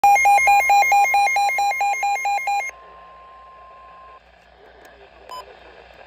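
Midland weather radio's alert beeping rapidly, about five beeps a second, over the steady 1050 Hz NOAA Weather Radio warning alarm tone: the beeping stops a little under three seconds in and the steady tone cuts off about a second later. A single short beep sounds near the end.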